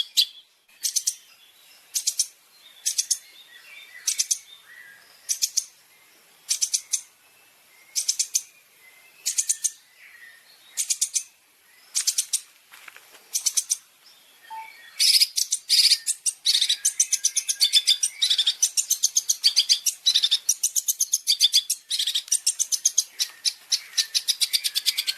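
A songbird gives short, high, rapid rattling bursts about once a second. About halfway through, they run together into a near-continuous fast chattering rattle.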